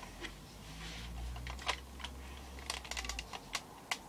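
Irregular sharp plastic clicks and rattles from a Nerf blaster being handled, as an attachment is worked at to pull it off. A low rumble sits under the clicks for the first three seconds or so.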